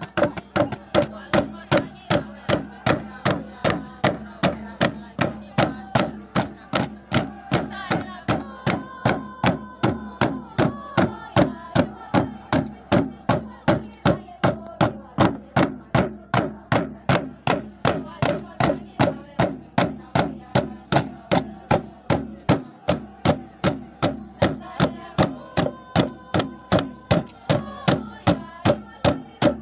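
A wooden kundu hand drum beaten with the palm in a steady, even rhythm of about two and a half strikes a second, keeping the beat for a dance.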